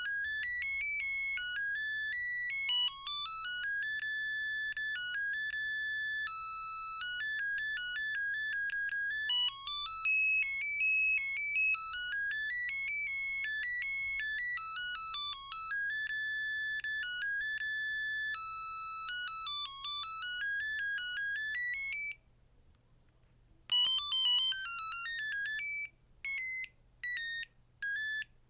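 Built-in ringtones of a Samsung SGH-R225 mobile phone playing: a long bright electronic melody, one note at a time, stops about 22 seconds in. After a short pause a faster ringtone starts, followed by a few short separate beeps near the end.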